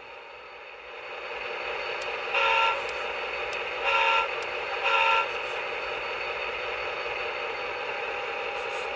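HO-scale Atlas SD35 model locomotive's ESU LokSound decoder playing a diesel engine sound through its small speakers, swelling about a second in and then holding steady. Three short chime-horn blasts sound over it.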